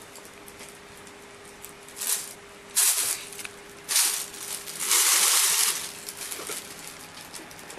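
Thin plastic shopping bag rustling and crinkling, with a kitten playing inside it. It comes in about four short bursts, the longest and loudest about five seconds in.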